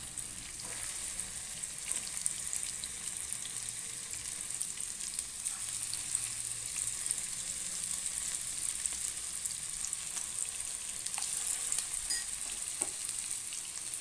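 Spice-marinated chicken pieces frying in hot coconut oil in a pan: a steady sizzle with fine crackling.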